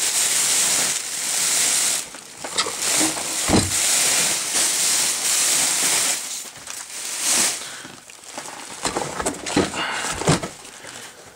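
Rustling and scraping of a fabric traction-splint bag being handled, with scattered clicks and a single knock about three and a half seconds in.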